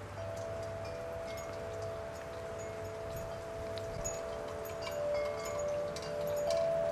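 Chimes ringing: several long, steady tones held for seconds and overlapping, with a new tone coming in near the end.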